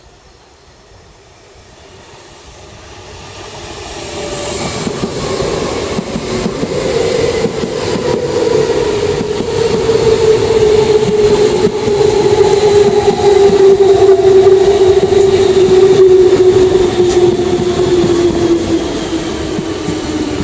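A DB class 420 S-Bahn electric multiple unit approaches and runs past close by. Its rumble builds over the first few seconds, then the motor whine carries several tones that slowly fall in pitch, with the wheels clicking over the rails.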